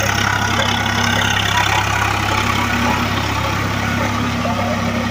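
Swaraj 855 FE tractor's three-cylinder diesel engine running steadily under load, driving a rotavator through flooded paddy-field mud.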